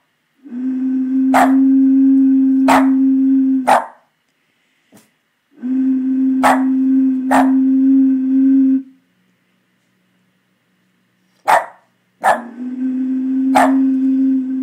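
A bottle blown across its mouth, giving three long, steady, low hoots of about three seconds each. A Boston terrier barks in short single barks over and between them, about eight times, reacting to the noise.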